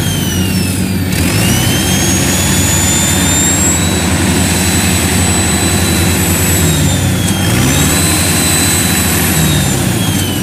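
Turbocharged diesel engine of a tracked rice-field machine labouring in sticky mud, with a high turbo whistle over the engine note. The whistle falls about a second in as the engine is loaded, climbs back, dips again briefly later and sinks again near the end.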